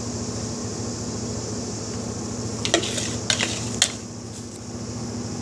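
A few light clinks of soap-making containers and utensils, three or four in quick succession about three seconds in, over a steady background hum and hiss.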